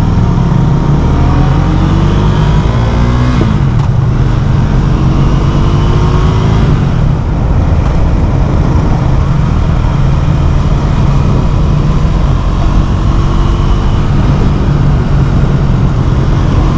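Motorcycle engine through a LeoVince LV One Evo carbon exhaust with its dB killer removed, running loud under way. The revs rise and drop several times.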